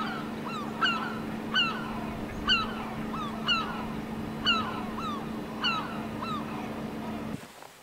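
A gull calling over and over, about once a second, each a short sharp cry that rises and then falls, over a steady low engine hum that cuts off near the end.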